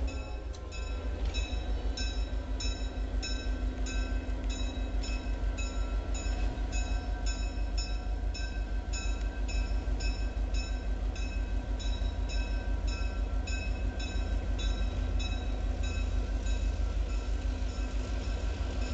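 Diesel locomotive's engine running with a low, steady throb, while its bell rings in rapid, even strokes, about three a second.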